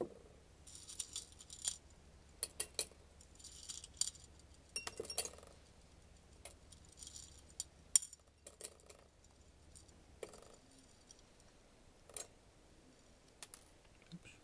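Small pieces of drill-press lead turnings picked up and dropped by hand into a glass Erlenmeyer flask of acetic acid, giving irregular clinks, taps and short light jingles against the glass.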